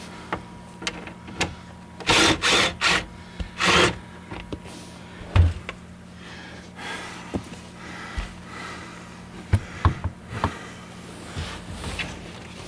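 A stuck dash part of a 1999 Blazer being worked at by hand: a few short spells of scraping and rubbing, then a single knock and later a quick run of clicks and knocks, as the part refuses to pop loose.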